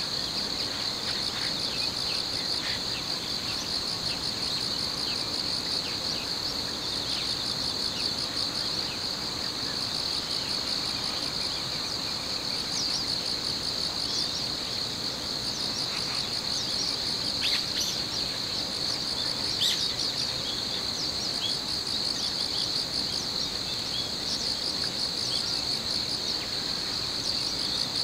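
A chorus of crickets and other insects trilling steadily at a high pitch, with a faster pulsing chirp above it. A few short bird chirps come through in the middle.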